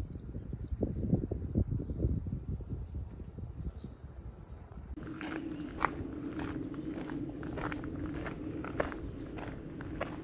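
Small songbird repeating short high chirps, irregular at first and then a quick regular series of about two to three a second from about halfway. Low rumbling noise lies under the first half.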